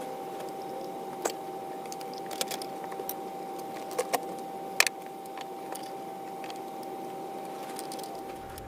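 Several light metal clicks and taps, like lantern parts being handled, scattered through the first five seconds. Under them runs a steady background hum with a faint constant tone.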